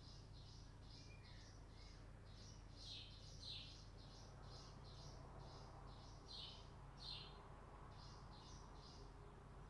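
Faint bird chirping outdoors: short high chirps repeating about three times a second, with a few louder downward-sweeping calls, over a low steady hum.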